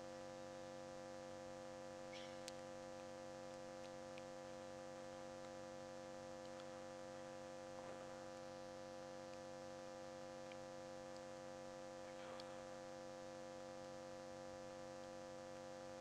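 Steady electrical mains hum, with a few faint rustles and clicks.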